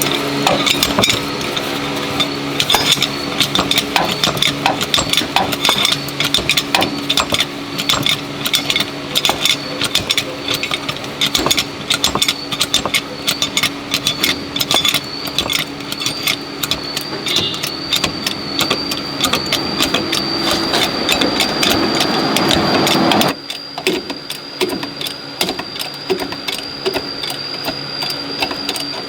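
A power tool's motor running with a steady high whine and dense rapid clicking. Its louder, rougher noise cuts off abruptly about 23 seconds in, leaving the whine and scattered clicks.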